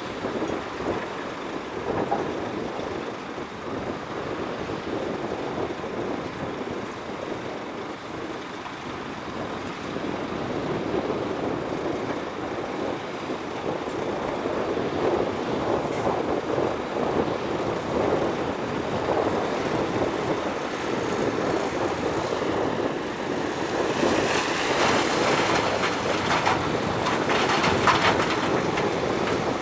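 Shantui crawler bulldozer working dirt, its engine running under load with rattling and clanking from the tracks. The sound grows louder, with sharper clanks and scraping near the end.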